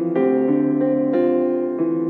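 Background music: a piano playing held chords, a new chord or note struck every half second or so.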